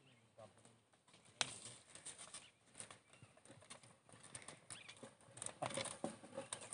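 Faint, scattered steps and scuffs of a yoked pair of oxen and their driver walking over dry, loose soil while dragging a wooden plank leveller, with one sharp click about a second and a half in. The steps grow busier near the end as the team comes closer.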